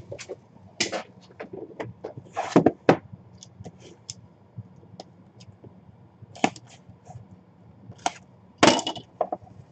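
Small cardboard puck boxes being handled and unpacked by hand: scattered taps, knocks, scrapes and rustles of card and packing. The loudest come about two and a half seconds in and again near the end.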